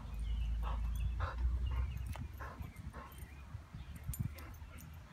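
Dogs at play giving short barks and yips, about six spread over a few seconds, with a low rumble on the microphone through the first two seconds.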